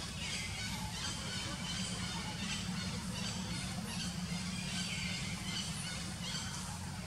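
Long-tailed macaques squealing, a run of repeated high-pitched calls over a steady low hum.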